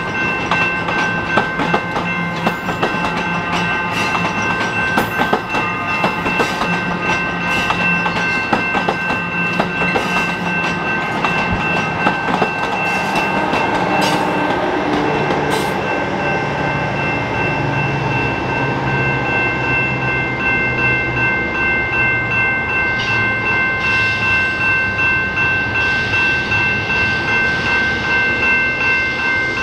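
EXO commuter train running through the station, its wheels clicking rapidly over the rail joints for the first half. Steady high ringing tones sound throughout. Lower engine tones shift in pitch in the second half, and a regular pulsing of about two a second sets in near the end.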